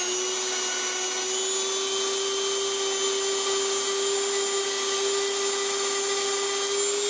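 Dremel rotary tool running at a steady speed with a felt buffing wheel, a steady high motor whine, as it buffs a small revolver action part to smooth it.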